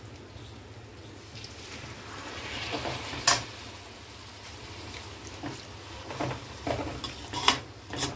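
Slotted metal spoon stirring and scraping vermicelli and vegetables in a hot aluminium kadhai, with a light sizzle under it. Sharp clinks of metal on metal come about three seconds in and again several times near the end.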